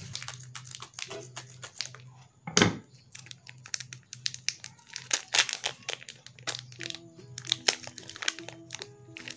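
Plastic instant-noodle seasoning sachets and packet crinkling as they are torn open and squeezed: a run of irregular sharp crackles, with one louder crack about two and a half seconds in.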